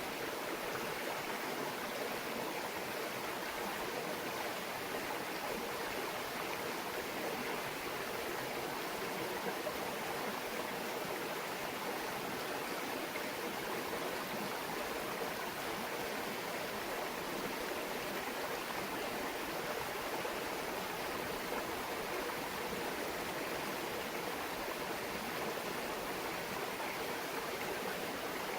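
A shallow stream babbling over stones, its water rushing and trickling steadily without a break.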